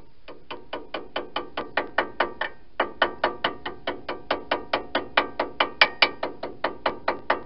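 Ratchet wrench clicking, about four clicks a second with a short break about two and a half seconds in, as a bolt on a truck's front brake caliper is turned.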